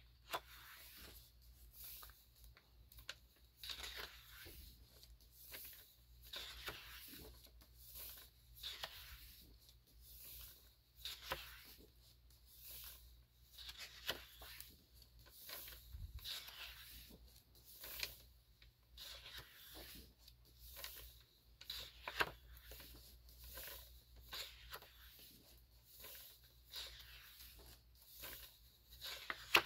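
Pages of a large photo book being turned one after another, a papery swish and flap roughly every second or two.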